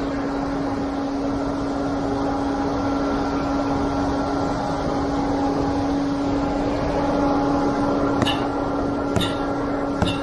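Concrete pump truck running steadily. From about eight seconds in, a sledgehammer strikes the pump line three times, about a second apart, to find and loosen a plug of concrete jammed in the line.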